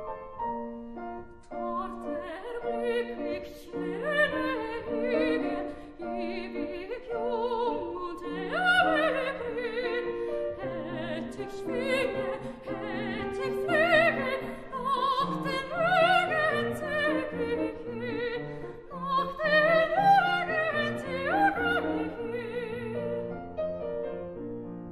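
Soprano singing a German art song with a wide vibrato over grand piano accompaniment. The voice comes in about two seconds in and stops shortly before the end, leaving the piano playing on.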